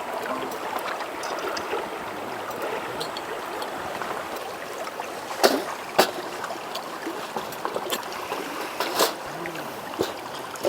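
Wood fire crackling during outdoor cooking: a steady hiss with a few sharp pops, three of them clearly louder, in the second half.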